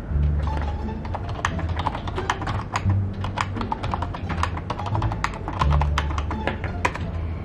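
Fast typing on a computer keyboard: a quick, uneven run of key clicks over background music with a bass line.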